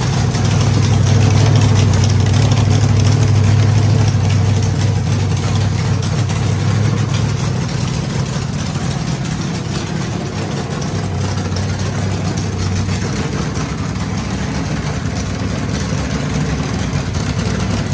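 Custom-built tractor's engine idling with a steady low rumble, a little louder over the first few seconds.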